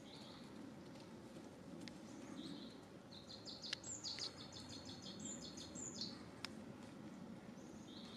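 Faint outdoor ambience with birds chirping, including a quick run of rapid high notes from about three to six seconds in, and a few sharp clicks.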